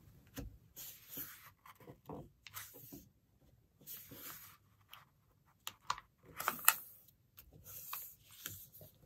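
Faint, scattered rustling and crinkling of a sheet of letter-size paper being folded and creased by hand, loudest about six and a half seconds in.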